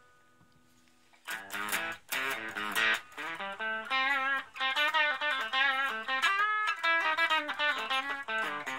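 Electric guitar played through a Raizin "60s Vintage Tweed" effects pedal. A phrase of single notes starts about a second in, with a held note that wavers in pitch about halfway through.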